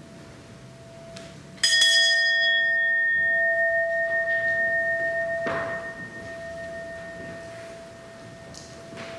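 Brass hand bell rung once, about a second and a half in, with a bright strike that rings on with a pulsing shimmer and a long, slow fade. A softer knock comes partway through, and a steady hum-like tone holds underneath throughout.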